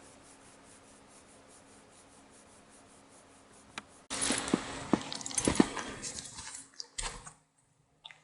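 Faint hiss, then about halfway through a sudden run of rustling and scuffling with soft thumps as a puppy and a kitten tussle. It dies away a second before the end.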